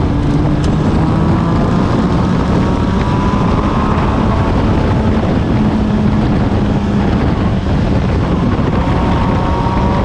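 Open-cockpit race car's engine heard onboard, running at a fairly steady pitch that rises slightly a couple of times, with wind noise on the microphone.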